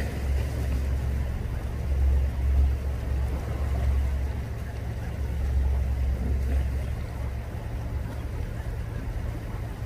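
Wind buffeting the microphone: an unsteady low rumble that eases after about seven seconds.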